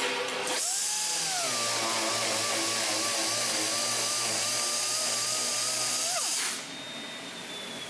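Power sander with on-tool vacuum dust extraction starting up and running with a steady whine for about six seconds, then switching off. A quieter extraction hiss with a slowly falling whine carries on after it.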